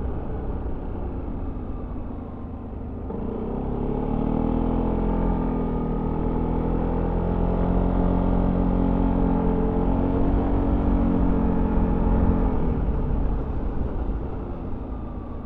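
Yamaha XMAX 300 scooter's single-cylinder engine with stock exhaust, heard on board while riding. The engine note falls as the throttle closes, climbs again about three seconds in and holds steady, then drops away near the end as the rider eases off.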